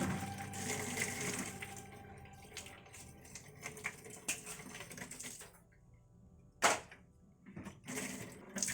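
Water spraying and splashing inside a freezer compartment to melt built-up frost, with scattered clicks and knocks; the loudest knock comes about two-thirds of the way through.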